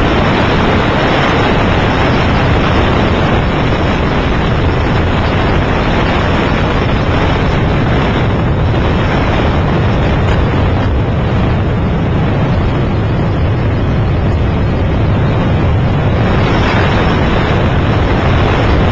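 Steady, loud rumble of an aircraft in flight heard from on board: engine and wind noise that does not change.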